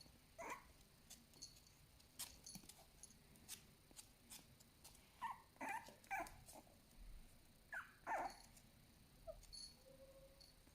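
A very small puppy making faint, short whimpers and yips in a few quick clusters, with faint clicks in between.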